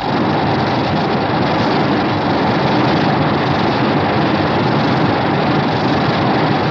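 Godzilla's atomic breath sound effect: a loud, steady, harsh rushing noise that starts abruptly and holds without a break.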